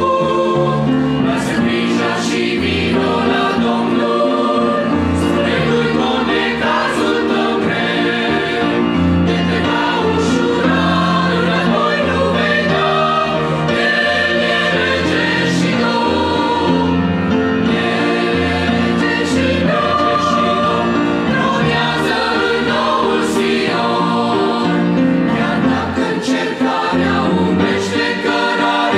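Mixed choir of men's and women's voices singing a hymn together in harmony.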